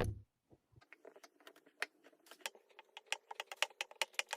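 Kinetic sand being squished, crackling as it compresses and crumbles: a scatter of small, sharp crackles that grow denser near the end.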